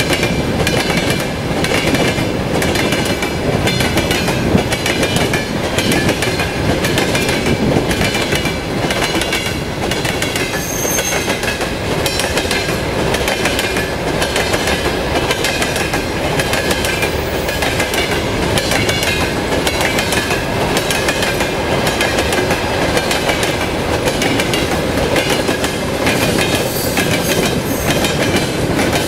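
Freight train wagons (covered hoppers, tank cars and gondolas) rolling past: a steady rumble of the cars with a rapid, rhythmic clickety-clack of the wheels on the rails.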